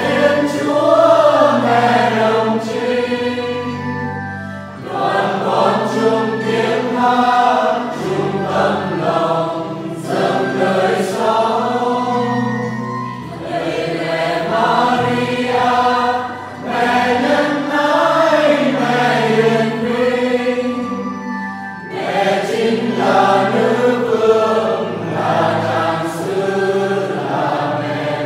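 Mixed choir of men and women singing a Vietnamese Marian hymn in parts, in long sung phrases with short breaths between them.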